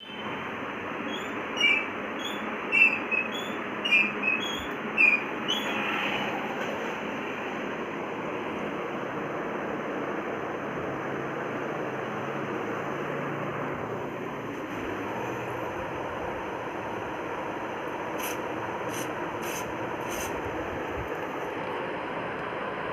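Squeaks from a rocking chair's dry hinges, about one a second for the first six seconds as the chair rocks, then they stop. Steady background hiss throughout.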